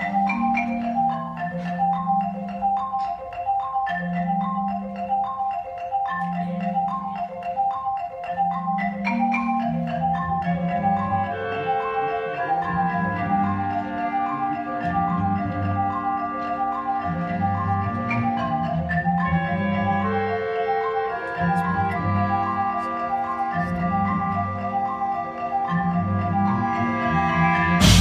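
Jazz-fusion band and full orchestra playing live: a quick repeating figure of high notes over a pulsing bass line. Held chords from more instruments join about eleven seconds in, and a loud full-band hit lands right at the end.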